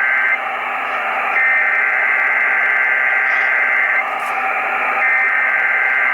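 Emergency Alert System SAME header data bursts, the harsh two-tone digital warble, received over AM radio with steady hiss. One burst ends just after the start, a second runs about a second later, and a third begins about five seconds in, each separated by a pause of about a second. The bursts open a Required Weekly Test.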